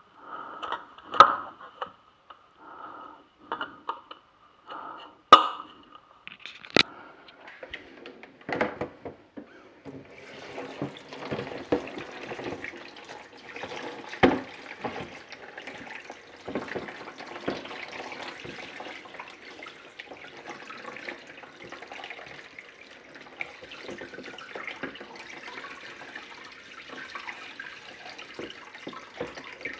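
A few sharp plastic clicks and knocks as a Garmin 45dv fish-finder unit is handled, then from about ten seconds in a kitchen tap runs steadily and splashes over the unit and into a plastic washing-up bowl, testing the unit's seal against water.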